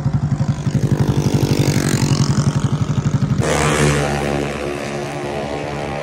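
Motorcycle engine running while riding, with a pulsing low throb; about three and a half seconds in the sound changes abruptly to a smoother, steadier engine note.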